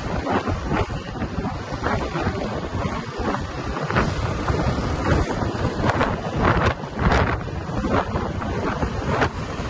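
Wind buffeting the microphone during a ride: a heavy low rumble with irregular gusty swells.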